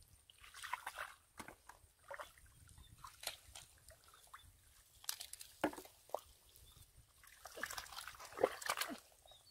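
Wet mud and muddy water squelching and sloshing as it is scooped and packed by hand, in irregular bursts that are busiest about a second in, around five to six seconds in, and near the end.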